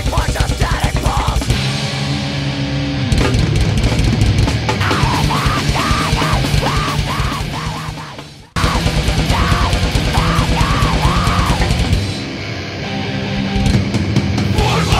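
Heavy metal music with drums and guitar. A little past halfway it fades, drops out for a moment and then comes straight back in.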